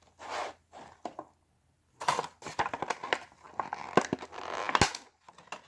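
Card-deck packaging being handled and opened: a short rustle, a pause, then a busy run of rustles and sharp clicks from about two seconds in, dying away near the end.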